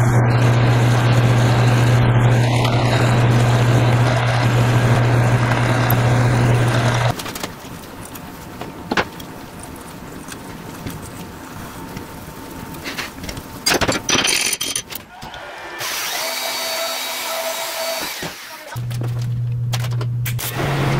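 Metal lathe running while a twist drill bores into a spinning steel rod: a steady hum with cutting noise that stops about seven seconds in. Quieter hand-tool work follows, a few clicks from threading with a tap wrench. A small handheld grinder starts up near the end.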